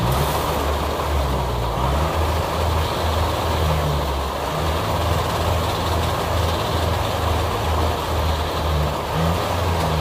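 Kubota DC-60 rice combine harvester running steadily: the low hum of its diesel engine under the dense rushing noise of the threshing and straw-throwing machinery at work.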